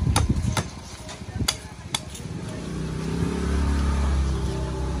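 A cleaver chopping the husk of a young green coconut on a wooden block, four sharp chops in the first two seconds. After that a vehicle engine swells in and runs on as it passes.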